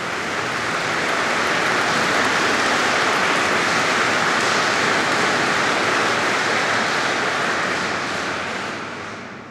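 A large audience in a big hall getting to its feet and shuffling: a broad rustle of clothing, chairs and feet as the crowd stands for a minute of silence. It swells in the first couple of seconds, holds steady, then dies away near the end as the hall goes quiet.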